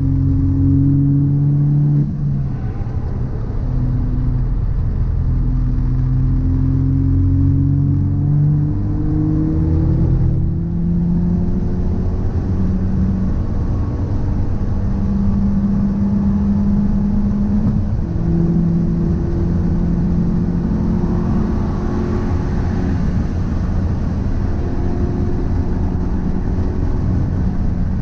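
A car driving along: engine note rising slowly and shifting pitch a few times over a steady road rumble. Recorded to catch an abnormal noise that the owner suspects comes from a driveshaft or a wheel hub.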